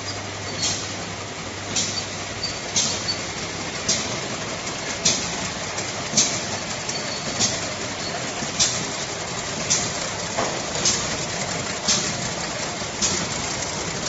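Monobloc ketchup filling and capping machine running: a steady mechanical noise with a short, sharp, high-pitched burst repeating about once a second.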